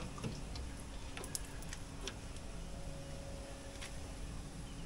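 Scattered light clicks and taps of clear plastic shower hoses being handled and shifted about, over a faint steady background hum.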